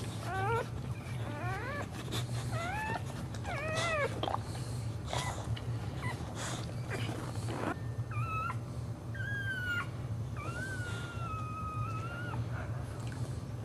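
Boxer dog in labour whining: several short rising whines in the first four seconds, then longer, drawn-out high whines from about eight seconds in. A steady low hum and scattered rustles of the bedding run underneath.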